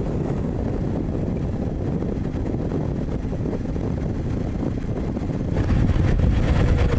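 Honda sidecar motorcycle running along the road, with wind rushing over the microphone. About five and a half seconds in, the sound gets louder.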